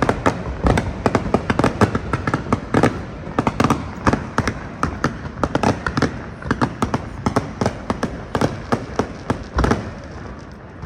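Fireworks bursting in rapid succession, many sharp bangs and crackles a second over a low rumble, dying away near the end.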